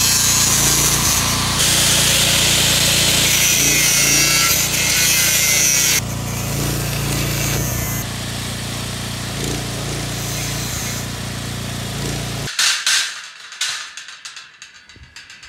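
Angle grinder cutting steel square tubing, a loud harsh grinding over a petrol generator running steadily. About six seconds in the grinding drops back to a quieter steady run, and near the end everything stops abruptly, leaving a few light knocks.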